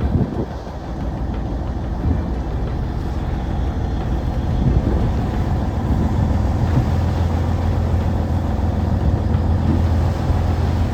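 Fishing boat's engine running steadily with a low hum, which grows stronger about six seconds in.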